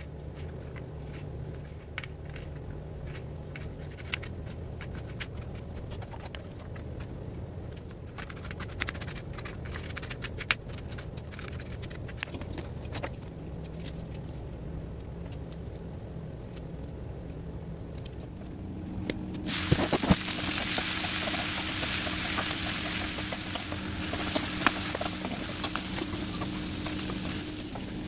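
A kitchen knife slicing tomatoes and then okra, light taps and clicks over a low steady hum. About two-thirds of the way through, sliced onions start sizzling in a hot wok-style pan, a steady crackling hiss that lasts to the end.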